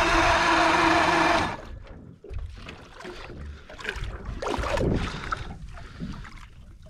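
Mercury boat engine running steadily on a fuel line patched with a wrap and zip ties, then cutting out abruptly about a second and a half in: the bodged repair has not held. Water then laps and sloshes against the hull.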